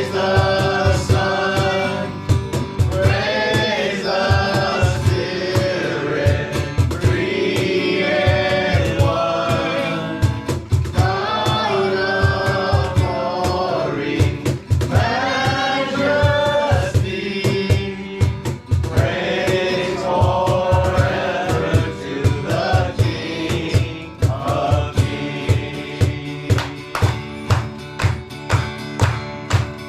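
Live worship music: voices singing a gospel-style song over a band with a steady beat of about two kick-drum hits a second. Near the end the singing stops and the instruments carry on.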